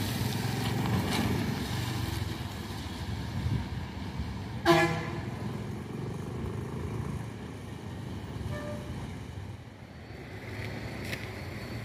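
Bus engine rumbling as it pulls away, with a single short horn toot a little before halfway through; the rumble then fades.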